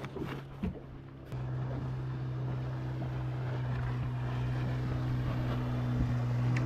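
Small fishing boat's engine running with a steady hum, which steps up and gets louder a little over a second in and then holds. A few light clicks and knocks in the first second.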